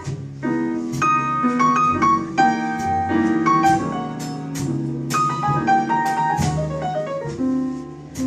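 Live small-group jazz: piano playing quick runs of notes out front, over bass and drums.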